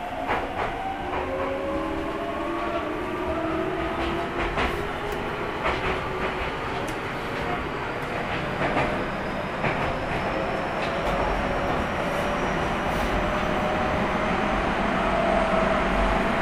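Keio 1000 series train under power, heard from inside the passenger car: the Toyo GTO-thyristor VVVF inverter whine, several tones rising slowly together as the train accelerates. Under it runs the train's running noise, with the wheels clicking over rail joints in pairs.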